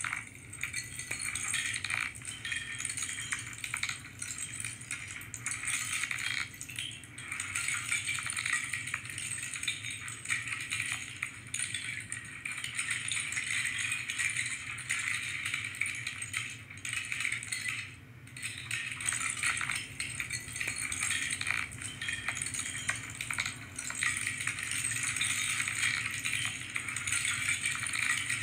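Continuous dense clatter of small plastic LEGO pieces being handled, sorted and snapped together, with a brief lull about two-thirds of the way through.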